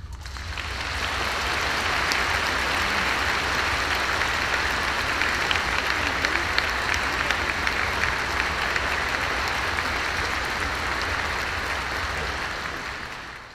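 Audience applauding, the clapping swelling up over the first second or two, holding steady, then dying away near the end.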